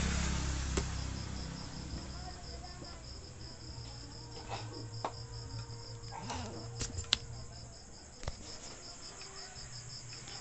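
A cricket chirping steadily in the background, a high pulsed trill at about four pulses a second, with a few light clicks and knocks from handling the TV chassis and circuit board, the sharpest about seven seconds in.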